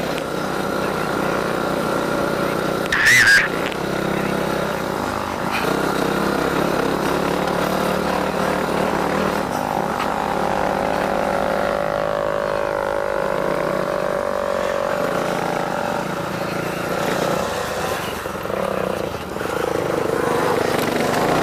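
Dirt bike engine running under way on a dirt trail, its note rising and falling with the throttle and gear changes, with wind noise. There is a short loud burst of noise about three seconds in.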